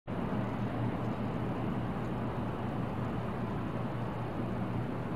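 Steady low ambient rumble with no distinct events: background room tone.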